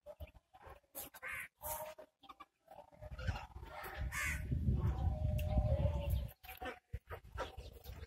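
Pigeons cooing in their coops, mixed with short scattered knocks. In the middle a low rumble on the microphone runs for about three seconds.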